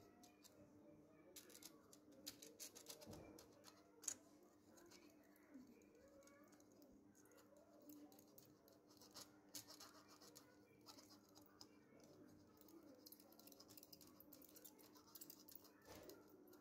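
Near silence: faint room tone with a low steady hum, scattered faint ticks and crackles, the sharpest about four seconds in, and faint bird calls in the background.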